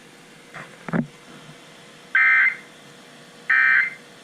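Emergency Alert System end-of-message code: two identical short buzzy data bursts about 1.4 s apart in the second half, signalling the end of the warning broadcast. A short thump comes about a second in.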